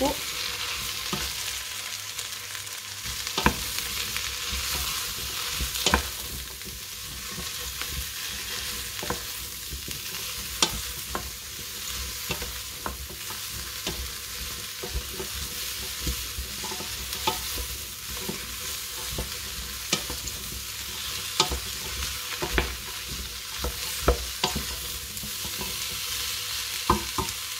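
Shredded red cabbage and onion sizzling in oil in a stainless-steel pot while a wooden spoon stirs them, with scattered knocks and scrapes of the spoon against the pot.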